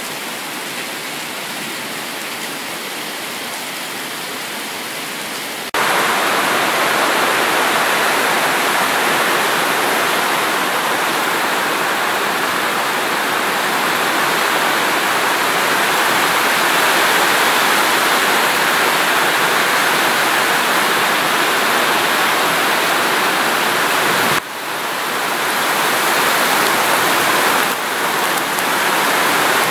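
Heavy tropical downpour: a steady, dense rush of rain pelting the ground and corrugated iron. It gets louder about six seconds in and breaks off abruptly twice near the end.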